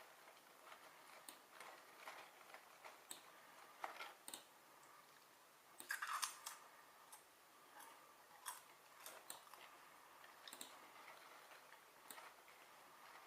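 Near silence with faint, scattered small clicks and ticks, a short cluster of them about six seconds in.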